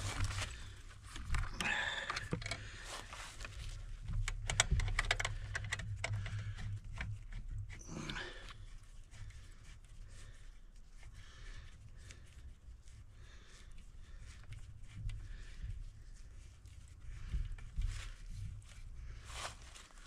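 Handling noise from an e-bike with a chainsaw mounted on it, stood on dry leaf litter: scattered rustles and light clicks over a low, uneven rumble, with a louder rustle about eight seconds in.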